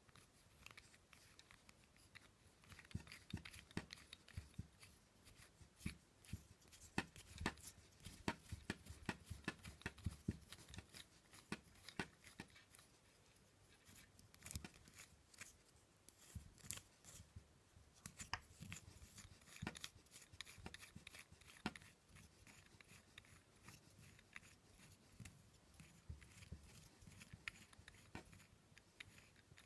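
A blue plastic threaded tensioner turned by hand: the knurled nut is screwed along the threaded shaft, making faint, irregular plastic clicks and rubbing.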